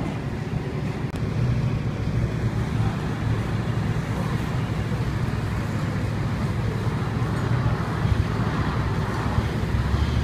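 Fire truck's engine running steadily at a fire scene, a low drone that gets a little louder about two seconds in.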